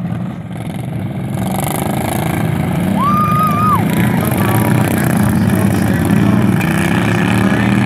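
Racing riding lawnmower engines running hard, getting louder over the first few seconds as the mowers pass close by. A brief high whistle-like tone cuts across about three seconds in.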